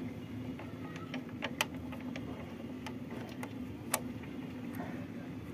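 Scattered sharp metallic clicks and taps as the hinged tailgate of a metal toy truck bed is closed and fastened with its chain, the loudest about a second and a half in and again about four seconds in, over a steady low hum.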